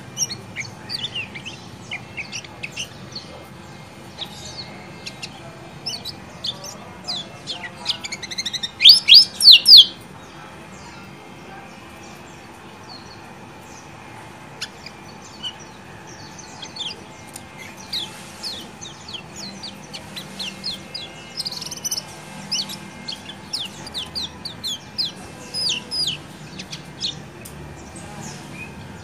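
Caged kecial kuning (yellow white-eye) chirping, the rapid, high 'ciak ciak' calls coming in clusters. The loudest burst comes about nine seconds in, followed by a quieter spell, then chirping picks up again in the second half.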